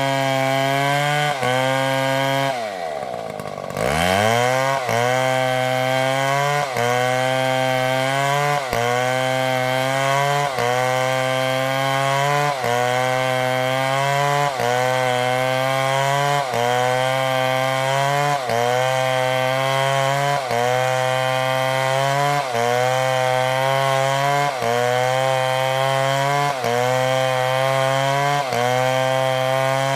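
Chainsaw engine running at high revs under load, its pitch sagging slightly in a regular pulse about every second and a half. About three seconds in, it drops sharply in pitch as the throttle comes off, then revs back up.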